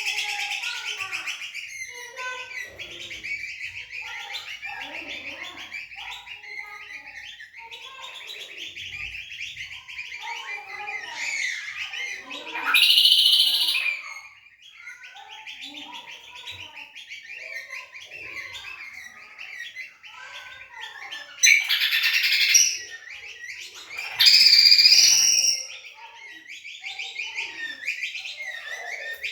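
Kecial kombok (white-eye) songbirds singing against each other, a continuous rapid high chirping twitter. Three louder, fuller song phrases break out, one near the middle and two close together a few seconds before the end.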